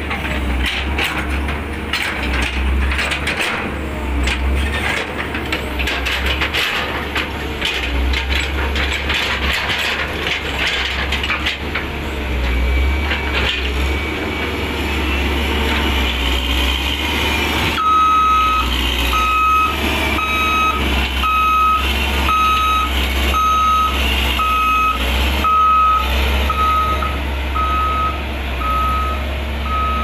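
Caterpillar wheeled excavator's diesel engine running under load, with the bucket scraping and clattering through dirt and stones. From about two-thirds of the way in, its travel alarm beeps steadily, about once a second, as the machine moves.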